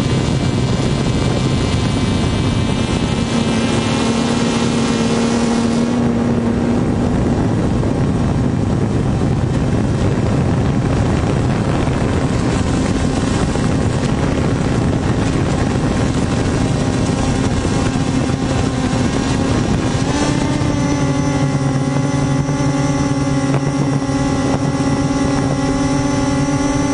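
Multirotor camera drone's motors and propellers whirring steadily, several steady tones over the whir; the pitch steps up slightly about 20 seconds in.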